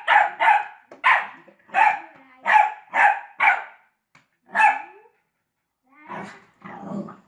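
A dog barking in a rapid series of about nine sharp barks. After a short pause, lower sounds come near the end.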